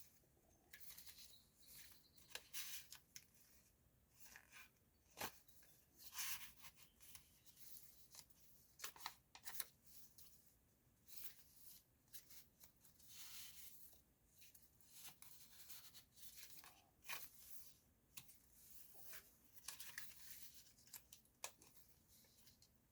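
Paper pages of a handmade junk journal being turned and handled: faint, irregular rustles and short flicks of paper, several a few seconds apart.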